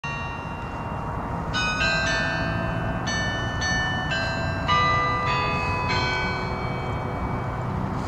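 Furman Bell Tower's carillon bells ringing a run of different notes, a new bell struck about every half second, each ringing on into the next and dying away near the end, over a low steady background rumble.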